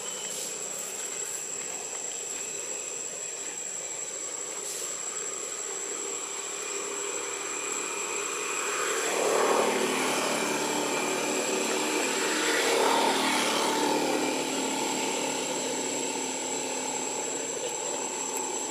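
A motor engine passes: it grows louder about halfway through and then fades away, over a steady high thin whine.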